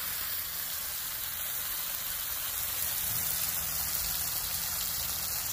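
Corn tortillas dipped in red chile sauce sizzling in a little oil on a hot griddle (comal): a steady, even hiss.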